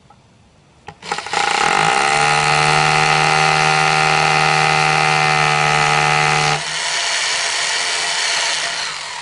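Electric hammer drill with a quarter-inch masonry bit boring into concrete. The motor spins up about a second in, runs steadily, then turns quieter and rougher about two-thirds through and winds down near the end.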